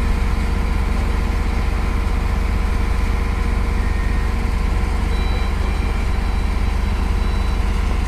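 Shipboard engine machinery running in a steady low drone with a fast, even throb underneath, unchanging throughout.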